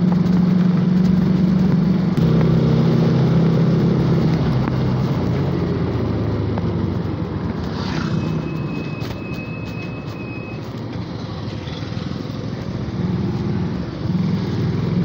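Yamaha FZ motorcycle's single-cylinder engine running at riding speed, heard from on the bike. It eases off a little past the middle and picks up again near the end. A thin, steady high tone sounds for about two seconds in the middle.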